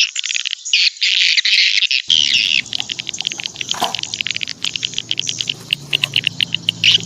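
Small birds chirping and twittering in quick, dense calls. A low steady background hum joins abruptly about two seconds in.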